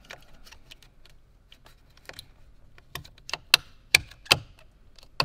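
Clear plastic snap-on cover being handled and pressed onto a cable terminal block: a run of light plastic clicks and taps, with three sharper clicks about three and a half to four and a half seconds in.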